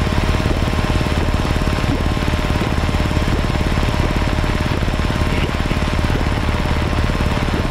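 Piper PA-28's piston engine and propeller running steadily, heard inside the cockpit as a fast, even throb.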